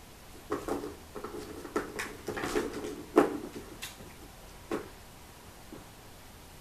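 Kitten batting the ball around the plastic track of a round cat scratcher toy: a run of knocks and rattles over about three seconds with one sharp, loud knock in the middle, then a single knock about a second later.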